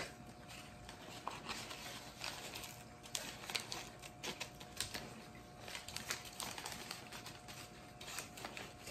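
Scissors snipping and paper crinkling as a paper wrapping is cut open by hand: a run of faint, irregular clicks and rustles.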